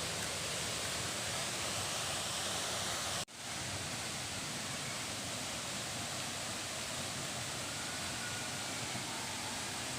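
Waterfall rushing steadily, a dense even hiss of falling water. It cuts out for a split second about three seconds in.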